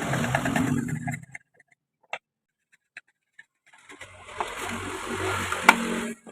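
Homemade wood lathe running while a tool cuts the spinning wood, in two spells with a gap of near silence between them and a sharp click near the end.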